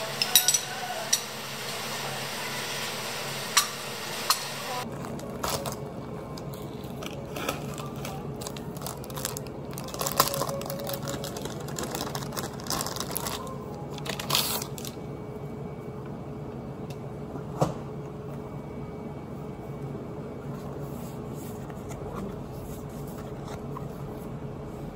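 A spoon clicking a few times against a glass of affogato, then the crinkle and rustle of a plastic-wrapped stack of paper sticker sheets being handled and unwrapped, over a steady low hum.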